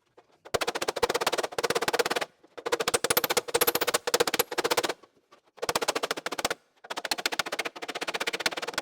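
Hammer blows on the steel outer skin of a 1928 Ford Model A door, hammering the patch panel down into place: quick runs of sharp metallic taps, about ten a second, broken by short pauses, with the panel ringing under the blows.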